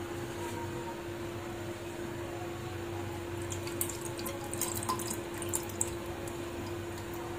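Leftover ramen soup poured from a bowl into a saucepan on a gas burner, dripping and splattering in small splashes between about three and a half and six seconds in, over a steady low hum.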